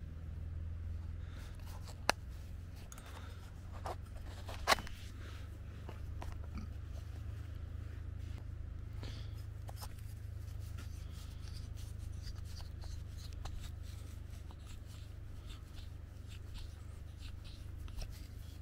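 Hands handling a leather sheath and fitting a steel wood-auger bit through the metal sleeve of a stick handle: two sharp clicks, about two seconds in and again a couple of seconds later, the second the loudest, and small scattered handling ticks, over a steady low rumble.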